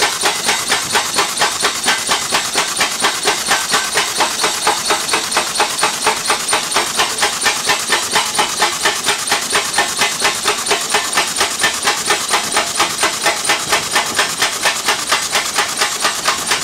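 BSP 700 air piling hammer driving a steel sheet pile down: a fast, even hammering of several blows a second, with compressed air hissing from its exhaust.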